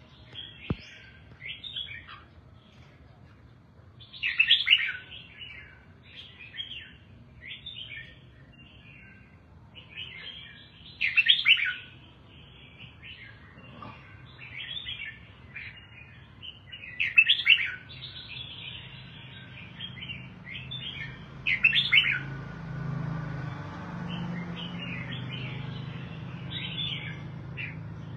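Red-whiskered bulbul singing: a run of short, quick chirping phrases, four of them clearly louder, coming several seconds apart. A steady low hum comes in for the last few seconds.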